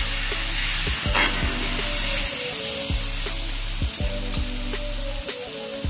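Marinated chicken pieces and onions sizzling in hot oil in a kadai, with a steady hiss, while a metal spatula stirs them and scrapes and knocks against the pan every second or so.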